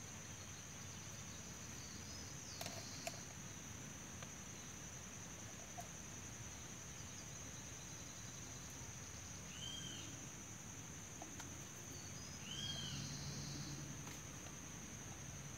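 Faint woodland ambience: a steady high-pitched insect drone, with two short bird chirps about ten and thirteen seconds in. A couple of light clicks about three seconds in.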